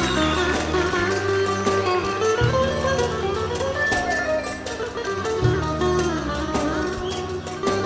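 Band playing the instrumental break of a Turkish song: a plucked-string melody over sustained bass notes, with bowed strings.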